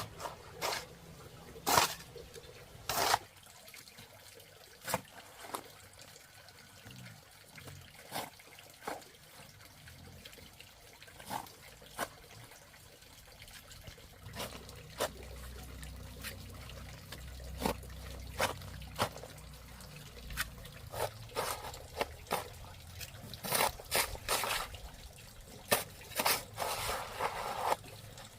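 Water splashing and dripping in irregular bursts, the splashes coming thicker near the end.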